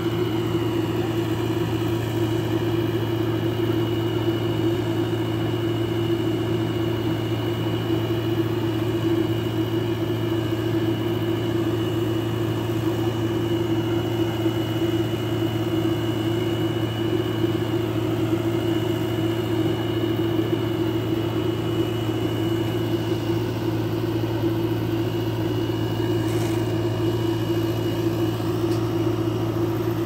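JCB 3DX backhoe loader's diesel engine running steadily as the backhoe arm digs and swings, with a thin steady high whine over it.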